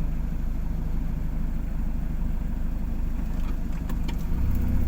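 Engine running steadily at idle, a low hum that grows louder about four seconds in, with a few faint clicks near the end.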